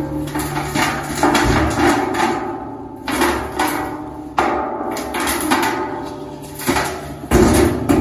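Tri-axle dump truck unloading about 25 cubic yards of fill dirt: irregular heavy knocks and clanks as the load slides out of the raised box, over the steady hum of the truck's engine running the hoist.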